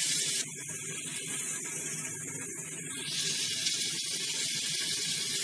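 Potatoes and tomatoes frying in oil in a wok, a steady sizzling hiss that drops a little about half a second in.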